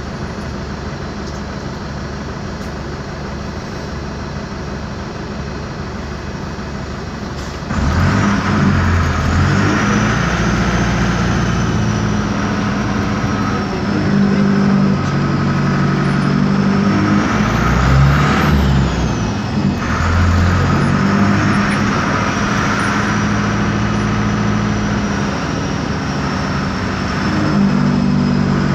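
Otokar M-2000 bus's air-cooled Deutz diesel engine heard from inside the cabin, running steadily at first, then getting louder about eight seconds in as the bus pulls away. Its pitch rises and falls several times as it accelerates, with a thin high whine that follows the engine speed.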